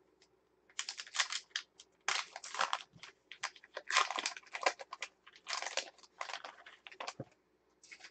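A Gypsy Queen baseball-card pack wrapper being torn open and crinkled by hand. It comes as a string of short crinkling bursts with brief gaps, starting about a second in and stopping shortly before the end.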